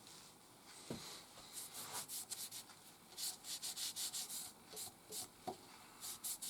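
A cloth rubbing tung oil onto a turned holly blank in quick back-and-forth strokes, about three or four a second, after a soft knock about a second in.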